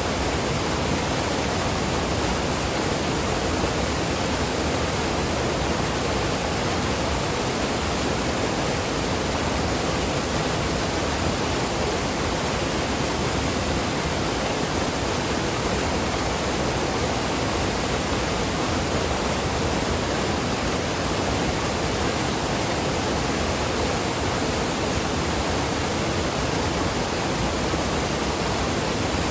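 Rushing water, a steady, unbroken rush with no distinct splashes or breaks.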